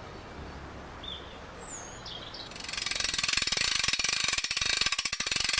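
A few bird chirps over quiet woodland background, then from about halfway a loud, rapid ratcheting buzz of dense clicks, like a fly reel's click-and-pawl drag as line is stripped off.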